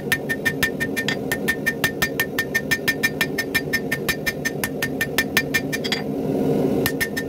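Hand hammer striking a hot 5160 spring-steel sword blade on an anvil in quick, even blows, about four to five a second, each with a bright ring. The hammering stops about six seconds in, then a few more blows land near the end, over a steady low rumble.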